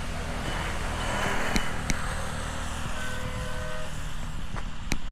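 Steady motor-vehicle engine and road rumble, with a few light clicks and a faint brief tone about three seconds in.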